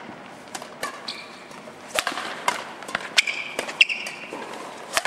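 Badminton rally: a string of sharp hits of rackets on the shuttlecock, with shoes squeaking briefly on the court floor partway through.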